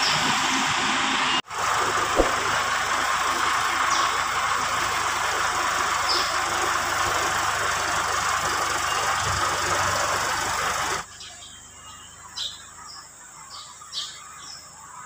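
Farm tractor engine running steadily with a loud hissing noise, cutting off suddenly about eleven seconds in. After that it is much quieter, with birds chirping.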